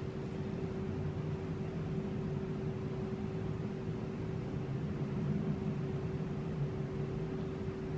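Steady mechanical hum with one constant pitched tone over a low rumble, unchanging throughout.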